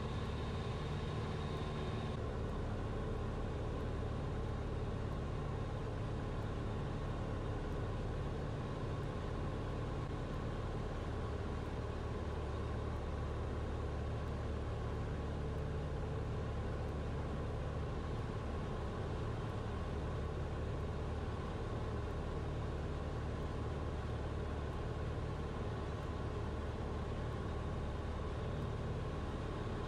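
Steady drone of a Grumman AA-5 single-engine light aircraft's piston engine and propeller, heard from inside the cabin on the approach to the airfield.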